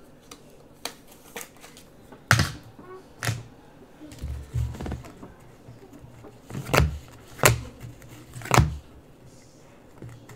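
Stack of trading cards handled in the hands, with cards slid off and knocked against the stack and table. The sound is a series of sharp clicks and taps, five louder ones spread irregularly, some with a dull thud.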